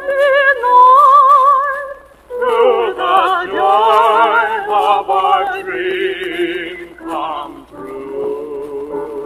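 A young man and woman singing a duet in a classical, operetta style with wide vibrato, accompanied by piano. The first long note breaks off about two seconds in, the voices return together, and near the end the singing stops and the piano carries on alone. It comes from an old disc recording that has been cleaned up.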